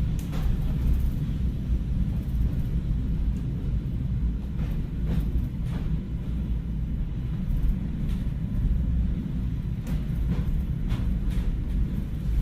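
A steady low rumble with a few scattered faint clicks, added to the footage as a sound effect.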